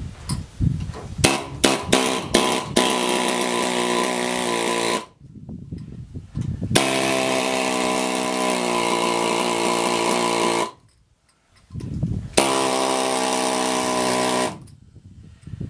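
Pneumatic air chisel hammering through the copper windings of an air-conditioning compressor's motor stator, giving a steady buzz. It starts with a few short bursts, then runs three times for several seconds each, with pauses between.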